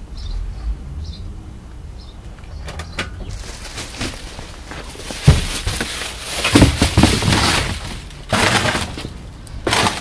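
Cardboard box lined with loose plastic sheeting being handled and set down: the plastic crinkles and rustles for several seconds from about three seconds in, with a few dull thumps of the box, then two short rustles near the end.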